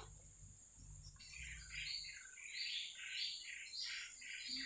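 A bird chirping in a quick, repeated series, starting about a second in, over a steady high insect drone.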